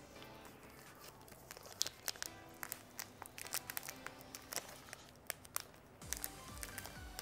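A snack wafer's plastic wrapper being crinkled and torn open by hand, with many sharp irregular crackles, over background music.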